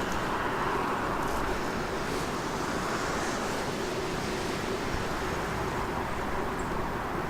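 Steady rushing noise of wind, even throughout, with no distinct events standing out.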